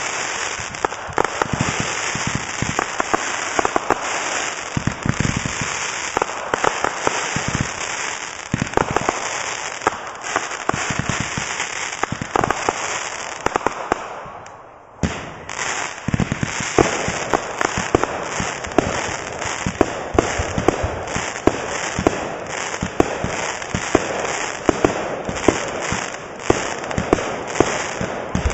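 Consumer firework cakes firing aerial bursts: a dense, continuous run of pops and crackles. The firing dips briefly about halfway, then resumes with sharp reports.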